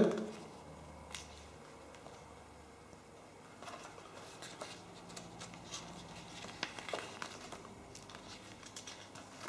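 Pages of a thin paper booklet being turned and handled: faint paper rustling with scattered soft crinkles and ticks, mostly from about three and a half seconds in.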